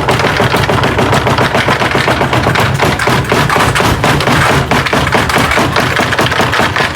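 Loud, continuous rapid banging and clattering, many hits a second without a break.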